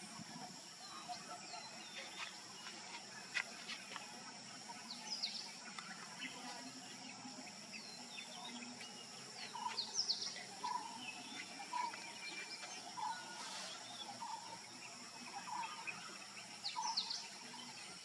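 Forest ambience of birds calling and insects droning: scattered short chirps and down-sweeping whistles over a steady high insect hum, and from about halfway through, one bird repeats a short, lower note again and again.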